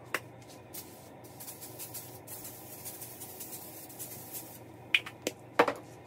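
Kitchen handling sounds: a few sharp clicks and knocks, the loudest near the end, with a stretch of soft hissing in the middle.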